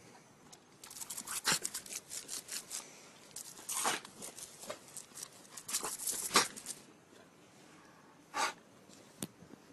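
Crackling, tearing noises in irregular clusters, followed by a few separate sharp clicks near the end.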